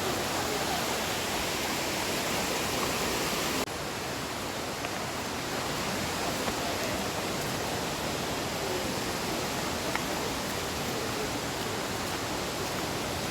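Steady rushing of a waterfall. About four seconds in the sound changes abruptly to a slightly quieter, duller rush.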